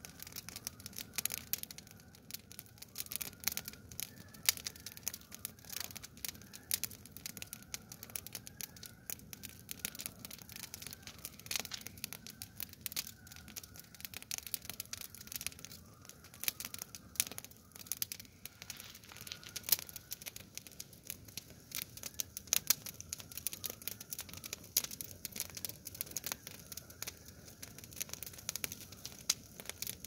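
Fire of dry twigs and brush crackling, with many quick irregular snaps and pops throughout.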